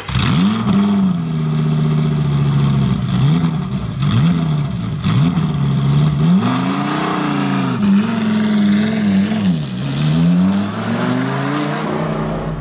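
BMW X4 M Competition's twin-turbo inline-six engine being revved while stationary: a run of rev blips that rise and drop back, with one longer hold in the middle, easing back down near the end.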